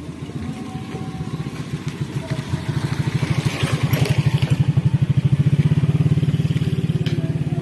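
Motorcycle engine running close by, its rapid pulsing growing louder from a few seconds in and easing slightly near the end.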